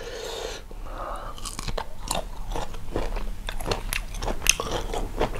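A person chewing sour green grapes close to the microphone: a string of irregular crunches and wet clicks that gets busier after about the first second.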